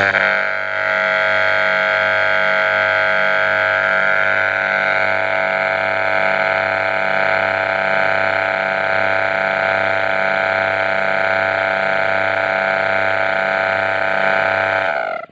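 Electric rotary-vane AC vacuum pump running with its oil housing removed, giving a loud steady hum with a regular pulsing beat. It starts suddenly and winds down with a falling pitch near the end. The pump is under repair because it runs rough and pushes its oil out.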